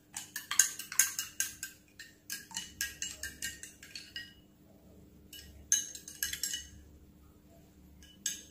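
Metal teaspoon clinking against a drinking glass as it stirs water with soaked seeds. There is a quick run of ringing clinks, several a second, for about four seconds, then a pause. A shorter run follows about five seconds in, and a few more clinks come near the end.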